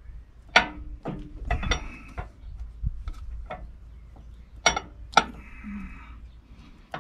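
Irregular sharp metallic clinks and taps, about eight, a few of them ringing briefly, as the seal gland and new lip seals are worked onto the oiled chrome rod of a Ford 770B loader lift cylinder.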